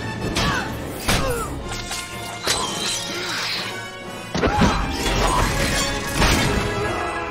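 Orchestral action film score with about five sudden crashes and smashing impacts over it, a sharp pair coming about four and a half seconds in.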